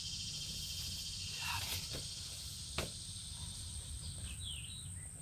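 Steady high-pitched chorus of swamp insects, with a thin constant whine on top. A single sharp snap comes about three seconds in.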